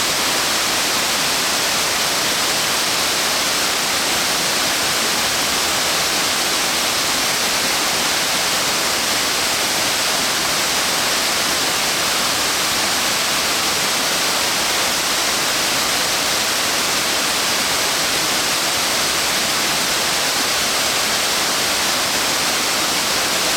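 Uba Falls, a 111 m high, 40 m wide branching waterfall, pouring in a steady, even rush of water with a bright hiss.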